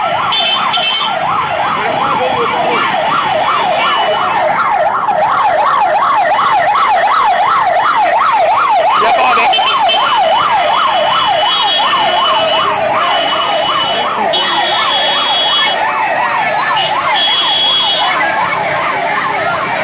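Vehicle siren in fast yelp mode, its pitch rising and falling about four times a second, fading out near the end.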